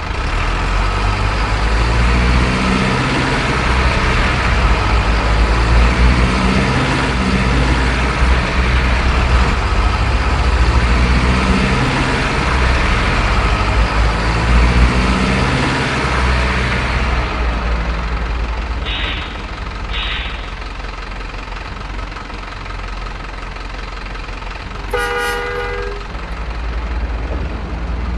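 Toy remote-control locomotive running with a loud, noisy rattle that eases off after about two-thirds of the way through. Two short high toots follow, then a brief horn blast near the end.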